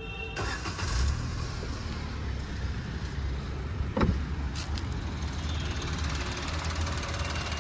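Maruti Suzuki WagonR's 1.0-litre K10C three-cylinder petrol/CNG engine starting: it catches just after the start, flares briefly about a second in, then settles to a steady, refined idle on petrol before its changeover to CNG. A single click sounds about four seconds in.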